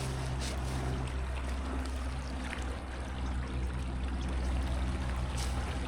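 River water flowing and trickling, with a steady low hum beneath.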